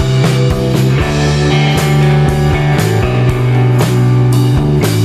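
Rock music: sustained chords over a steady drum beat of about two beats a second.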